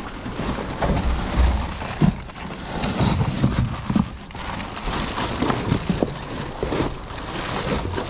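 Rummaging through dumpster contents: cardboard boxes, plastic bags and a plastic tote rustling, crunching and knocking as they are shifted by hand, in a dense, irregular crackle.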